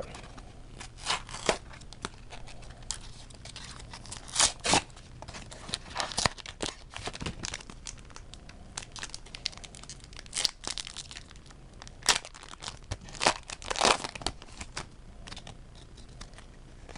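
A foil booster pack of Pokémon cards being torn open, with crinkling of the wrapper and irregular sharp rustles and crackles as it is handled.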